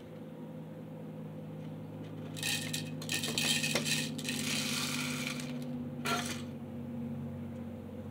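Loose model coal rattling and clinking as it pours from a model coaling tower's chute into a plastic hopper car, for about three seconds, followed by a short second trickle. A steady low hum runs underneath.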